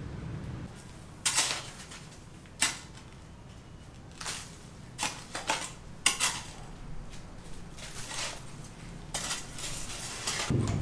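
Irregular clinks and clatters of hard objects, about ten sharp knocks spread unevenly, some ringing briefly like metal.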